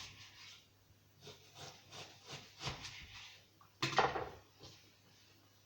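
Knife slicing through partly frozen chicken breast and knocking on the cutting board several times, with the loudest knock about four seconds in.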